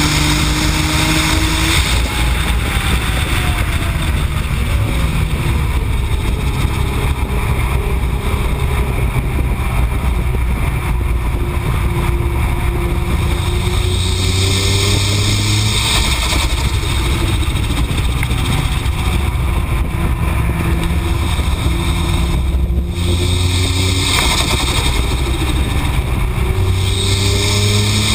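Nissan GT-R's twin-turbo V6 at race pace, its note climbing and dropping several times through acceleration, shifts and braking, under a constant rush of wind and road noise.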